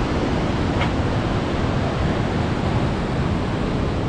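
Steady wind rushing on the microphone out at sea, an even noise strongest in the low end, with no engine note or knocks standing out.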